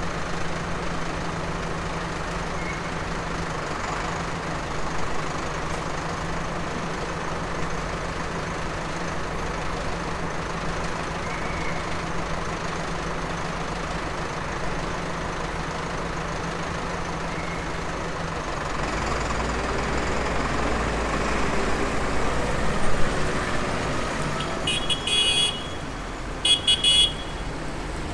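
Diesel engines of a column of farm tractors running at low speed, with a steady low hum. About two-thirds of the way through a heavier engine rumble sets in as the nearest tractor moves off. Near the end a horn sounds two short toots.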